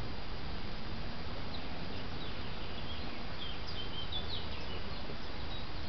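Small birds chirping, a scattering of short high calls over a steady low background noise.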